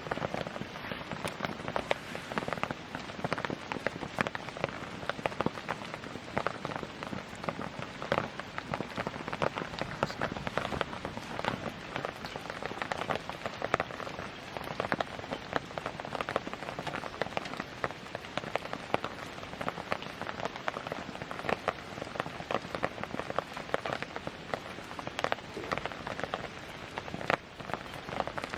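Wood campfire crackling, with dense irregular pops and snaps over a steady hiss.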